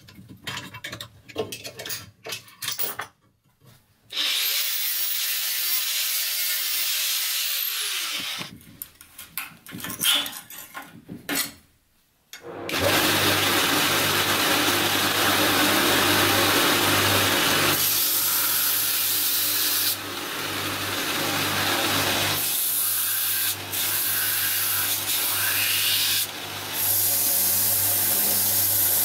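Drill press drilling out the rivets of a rusty knife's handle, with scattered clicks and scrapes of metal, broken by two brief silences. From about a third of the way in, a belt grinder runs steadily as the rusty blade is ground against the belt: a loud, even hiss over a low motor hum.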